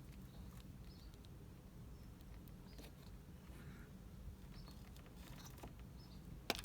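Faint scratching and light clicks of a small plastic trim cover being worked off a car's outer door handle, with one sharper click near the end.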